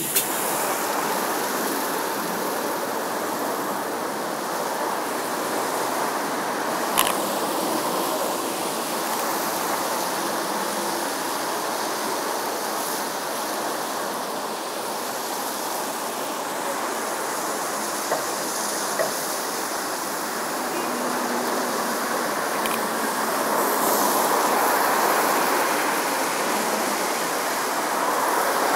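Road traffic on a rain-wet street: a steady hiss of car and bus tyres on wet asphalt, swelling a little as vehicles pass, with a sharp click about seven seconds in.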